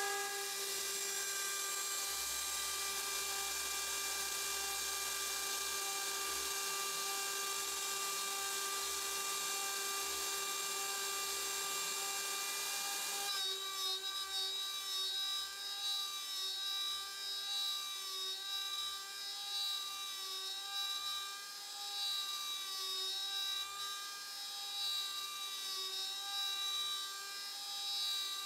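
CNC router spindle screaming at a steady 24,000 RPM, a high whine with a tone near 400 Hz and its overtones, extremely loud. About halfway through, a Datron single-flute carbide end mill is cutting into aluminum: the whine wavers and grows rougher under load.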